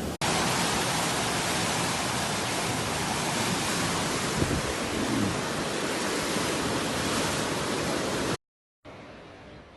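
Floodwater rushing, a loud steady hiss-like noise with no distinct events. Just before the end it cuts out briefly and comes back much quieter.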